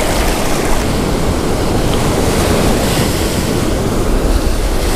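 Ocean surf washing in and out around the feet in shallow water, a steady rushing wash, with wind rumbling on the microphone.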